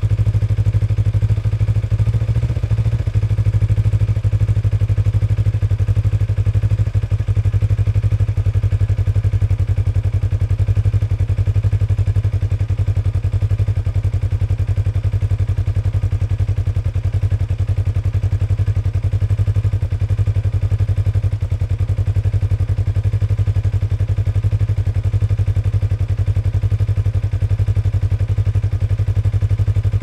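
Motorcycle engine idling steadily, a low, even beat of firing pulses that holds the same speed throughout.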